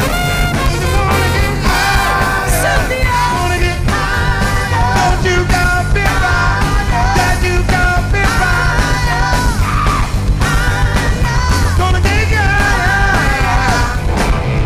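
Live funk band in full swing: drums and bass keep a steady beat under electric guitar, with a lead voice singing over the top.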